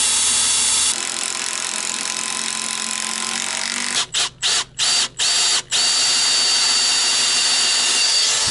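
Cordless drill with a twist bit boring an angled hole into a wooden timber post, running steadily with a high whine. About four seconds in it cuts out briefly five times in quick succession, then runs steadily again.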